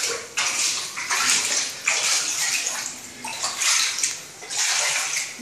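Feet wading through shallow floodwater on a tiled floor, a slosh and splash with each step, a little more than one a second.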